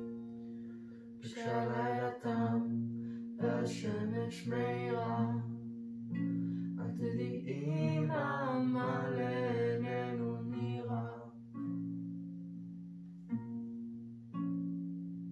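Two acoustic guitars, one nylon-string and one steel-string, strumming chords while a girl sings. The singing stops about eleven seconds in and the guitars carry on alone, with chords restruck a few times.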